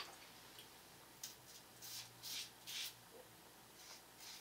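Gillette double-edge safety razor with a Feather blade scraping through lathered five-day stubble: a few short, faint strokes, starting about a second in.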